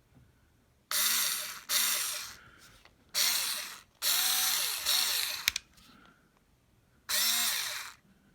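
Hyper Tough 4-volt cordless screwdriver motor run in about six short bursts, each spinning up and coasting back down as the trigger is pressed and released. Every burst reaches the same top speed: the tool is single-speed, not variable.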